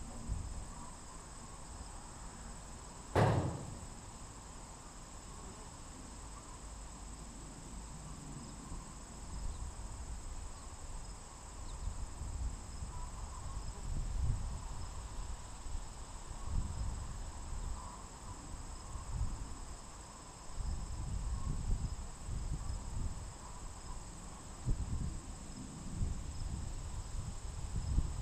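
Insects trilling steadily in the background, with gusts of wind rumbling on the microphone. A single sharp knock sounds about three seconds in.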